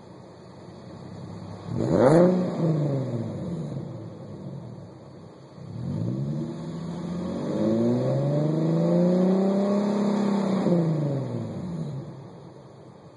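Infiniti G37's 3.7-litre V6 through a Stillen cat-back exhaust, idling, then revved in a quick blip about two seconds in, and again from about six seconds in, held high for several seconds before dropping back to idle.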